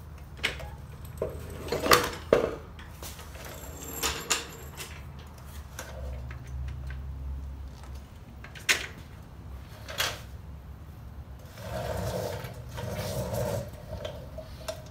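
Scattered knocks and clunks as a Harley-Davidson Road King's rear wheel is jiggled and worked by hand out of the swingarm after the axle is pulled, metal and rubber parts bumping against each other, the two loudest about two seconds in. A steady low hum runs underneath.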